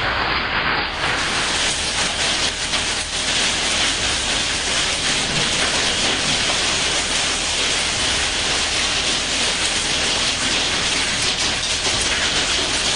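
Storm wind and heavy rain outside a window, a loud, steady rushing noise with no break. About a second in it turns brighter and hissier.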